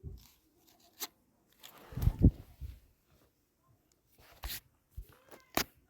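Scattered knocks and thumps with quiet gaps between them: a sharp knock about a second in, a louder cluster of deep thumps around two seconds, then three short sharp knocks near the end.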